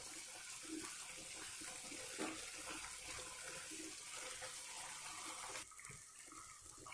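Faint wet stirring of a simmering broccoli gravy with a spatula in a nonstick kadai: a soft hiss with small squelches, stopping about five and a half seconds in.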